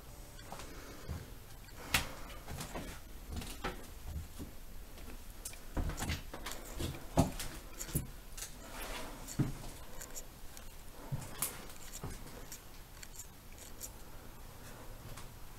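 Irregular footsteps crunching and knocking over debris, with scattered sharp clicks and low thuds.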